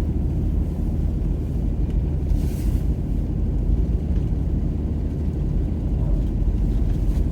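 Steady low rumble of a car driving slowly on a snow-covered road: engine and tyre noise heard from inside the cabin.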